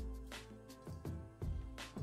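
Background music: an instrumental track with a steady beat over sustained low bass notes.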